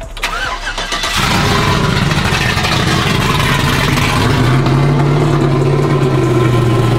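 Modified Chevy pickup's built 5.3 L V8 revved hard and held at high rpm for several seconds, its pitch creeping slowly upward before it drops off right at the end.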